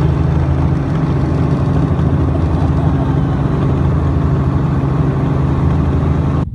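A steady, loud engine-like drone running at an even pitch, which cuts off suddenly near the end.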